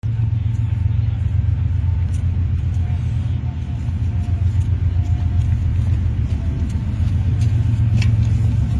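Diesel locomotive engine running with a steady low rumble, a few faint clicks over it.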